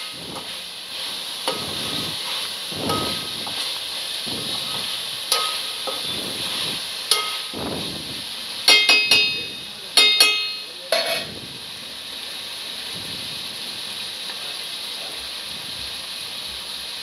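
Mixed vegetables frying in oil in a pot, sizzling steadily, while a metal spoon scrapes through them in repeated stirring strokes. About halfway through, two quick runs of ringing metal clinks as the spoon knocks against the pot; after that only the sizzle goes on.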